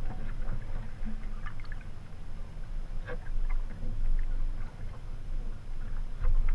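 Wing paddle strokes in flat water: repeated light splashes and drips as the blade goes in and comes out beside the kayak, over a steady low rumble.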